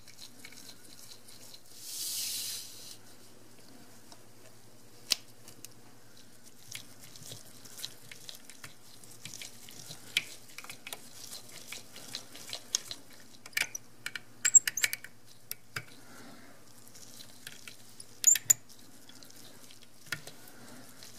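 Scattered small clicks and ticks of a tiny #0000 Phillips screwdriver and tweezers working the miniature screws out of a Canon 6D camera's main circuit board, over a faint steady low hum. A short soft hiss comes about two seconds in.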